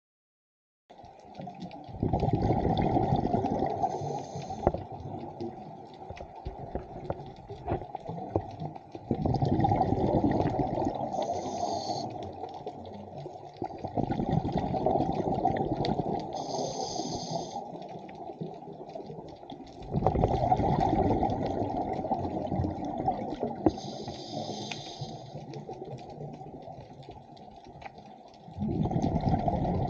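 A scuba diver breathing through a regulator underwater: five bursts of exhaled bubbles, each fading over several seconds, with a short high hiss of inhalation between them, about one breath every six to seven seconds.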